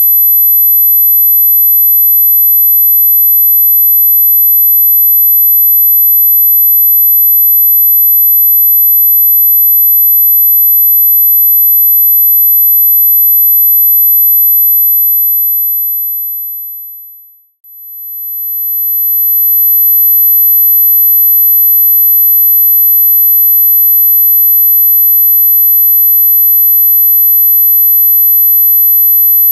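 A steady 12 kHz pure sine tone, played as a tinnitus-masking tone. About 14 seconds in it fades away to nothing, then swells back to full level a couple of seconds later.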